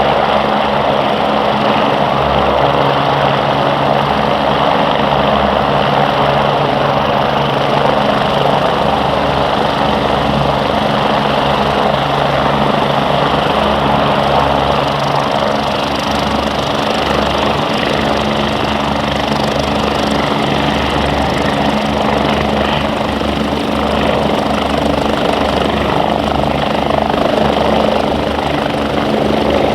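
Twin-turbine MBB/Kawasaki BK117 helicopter running steadily: the turbines' whine and the rotor's low, uneven throb.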